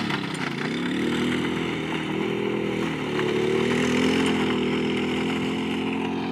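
Keeway 150 quad's single-cylinder four-stroke engine revving as the ATV rides off, the pitch dropping and climbing twice before holding steady, growing slightly fainter toward the end.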